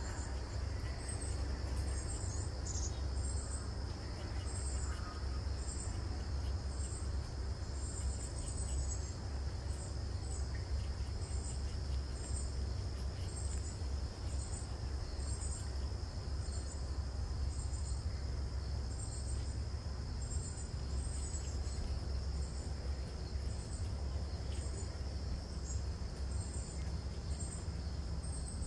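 Insects singing outdoors: a steady high-pitched drone with short chirps repeating above it about once or twice a second, over a steady low rumble.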